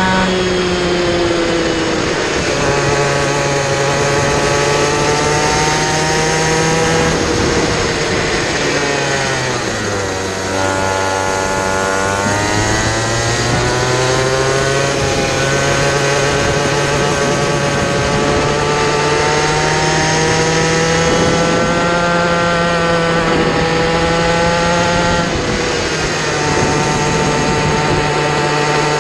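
A kid kart's small two-stroke engine running at racing speed, heard up close. Its note rises and falls with the throttle, drops steeply about ten seconds in, then climbs back up and carries on with smaller swells.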